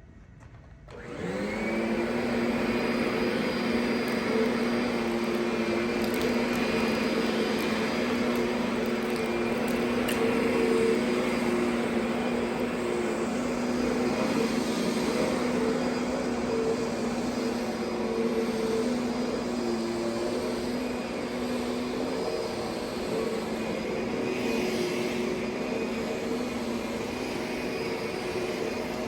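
Kirby Sentria 2 upright vacuum cleaner switched on: the motor spins up about a second in, then runs steadily. Its pitch drops slightly about three quarters of the way through.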